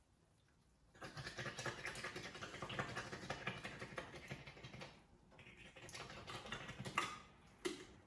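Rapid clattering and clicking of a container being shaken hard to get its contents out through a small opening. It runs for about four seconds, goes on more softly, and ends with two sharp knocks near the end.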